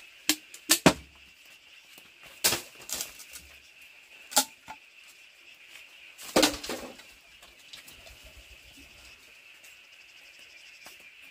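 Sharp, irregular knocks and cracks of bamboo being struck and worked loose, about half a dozen in the first seven seconds, then quieter toward the end. A steady high hum runs underneath.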